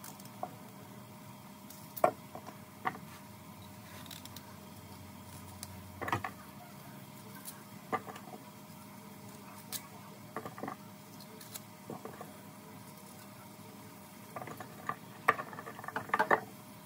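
Irregular light clicks and knocks of objects being handled, loudest in a cluster near the end, over a faint steady hum.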